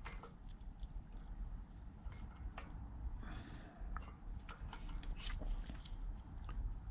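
Faint, scattered small clicks and scrapes of a metal clip-on balance weight being handled and fitted onto a motorcycle wheel spoke and its nipple.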